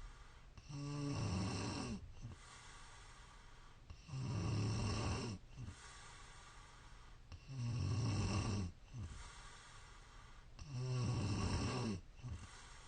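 A woman snoring in her sleep: four loud, rattling snores about three seconds apart, with quieter stretches between them.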